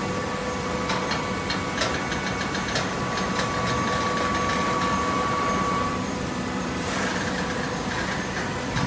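Hydraulic baler running: a steady motor and pump hum with a higher whine that holds for several seconds. A run of clicks and knocks comes in the first few seconds, and there is a short rush of noise about seven seconds in.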